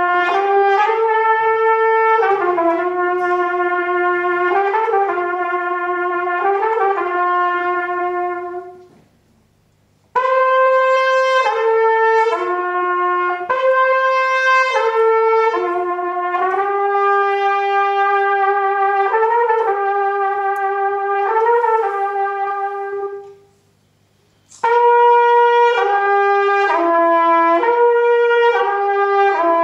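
Solo trumpet playing a slow melody in three long phrases of held notes, with a brief pause after each of the first two.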